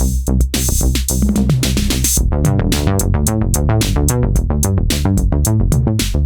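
Novation Peak synthesizer playing a resonant, filter-swept bass patch in a 110 bpm sequence over an electronic drum beat. About two seconds in, the pattern turns into a busier run of fast, evenly repeated notes.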